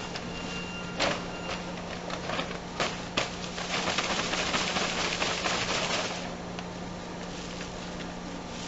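A multi-ply paper sack crackling and ripping as it is cut open and upended over a metal hopper, then polyethylene powder pouring into the hopper with a dense hiss for about two seconds. A steady low machine hum runs beneath.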